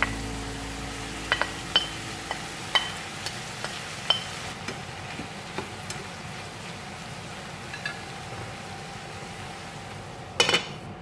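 Shrimp, tomatoes and zucchini sizzling in a coated frying pan while a plastic spatula stirs them, with a scatter of sharp clicks and taps against the pan. Near the end a glass lid is set down on the pan with a brief loud clatter.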